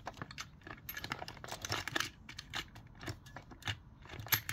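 Irregular plastic clicks and scrapes from a Deli camera-shaped hand-crank pencil sharpener being handled as its spring-loaded pencil carriage is pulled out along its metal rods, a little louder near the end.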